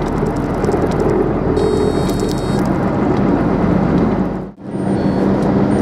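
Renault Premium truck's diesel engine running as the truck pulls away, heard from inside the cab as a steady drone with road noise. The sound drops out sharply for a split second about four and a half seconds in.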